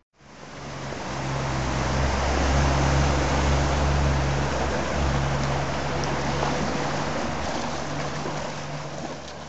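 Motorboat engine running at a low steady hum as the boat passes, its propeller churning the canal water into a loud wash. The sound swells in the first few seconds and slowly fades away.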